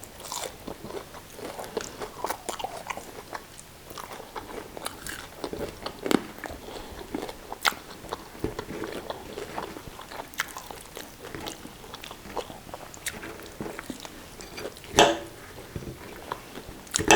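Close-up eating sounds: biting, chewing and crunching on fries, sausage and salad, with many small wet clicks. One louder sharp crunch or knock comes about fifteen seconds in.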